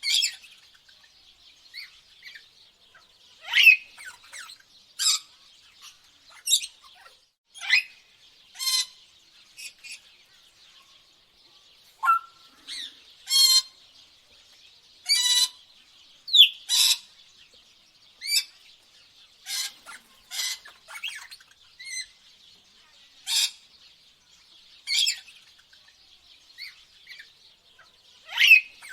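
Birds calling: short, sharp chirps and squawks every second or so, some louder than others, over a faint steady high chatter.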